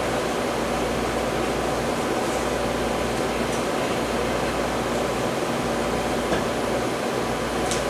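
Steady fan hum, even and unbroken, with a few faint light ticks.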